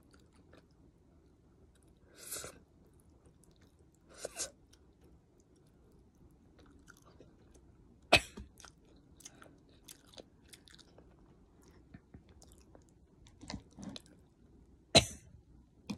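A person eating noodles from soup by hand, chewing quietly with wet mouth sounds. There are two short hissy slurp-like sounds in the first five seconds, and sharp smacking clicks about eight seconds in and again near the end.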